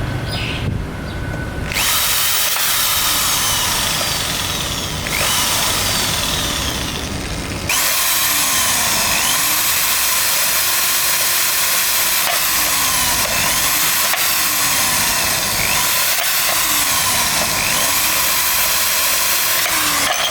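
An electric drill running and drilling, a loud steady grinding noise that breaks off and restarts abruptly about 2, 5 and 8 seconds in.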